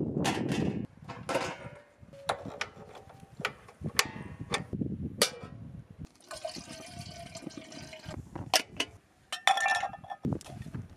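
Scattered clicks and knocks of camping gear being handled. In the middle, water is poured from a flask into an aluminium camping kettle for about two seconds. Near the end, enamel mugs are set down with a clink.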